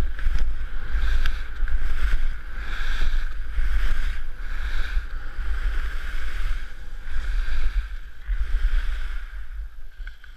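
Wind buffeting a helmet-mounted GoPro's microphone as the skier goes downhill, with skis hissing and scraping over groomed snow in swells as he turns. It eases off near the end as the skier slows to a stop.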